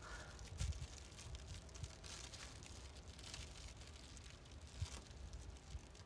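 Faint crinkling of a thin plastic bag as fingers work at its knot, with a few soft low thumps.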